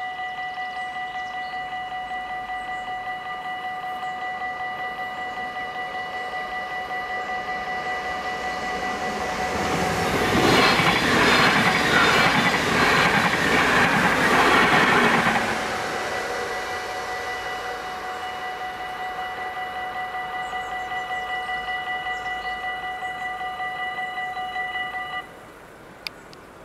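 A railroad crossing's warning bell rings with a steady, rapidly pulsing tone while a train passes, loud for about five seconds near the middle. The bell stops abruptly near the end.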